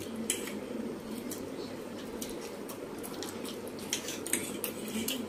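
Faint eating sounds: noodles being chewed and slurped, with a few light clicks of metal forks on plates, over a steady low background hum.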